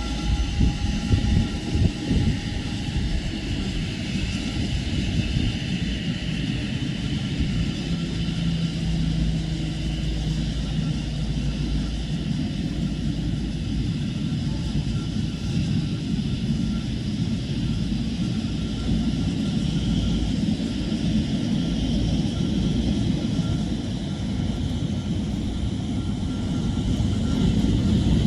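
Boeing 777-200ER's jet engines running at idle on the ground: a steady rumble with a faint whine over it.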